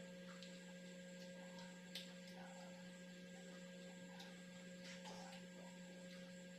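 Near silence: room tone with a steady low electrical hum and a few faint clicks, likely from eating at the table.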